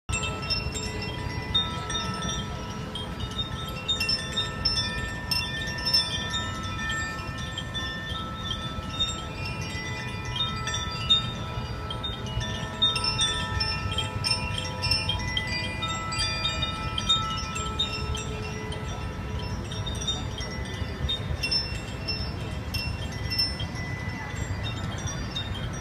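Chiming, bell-like tones ringing and overlapping, several held notes at once with light tinkling strikes above them, over a steady low rumble.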